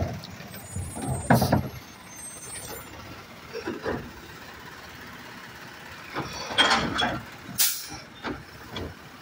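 Automated side-loader garbage truck working curbside, its engine running while the hydraulic arm handles the carts. A sharp clunk comes about a second and a half in, more clanks follow around four and seven seconds, and a short hiss of air comes near the end.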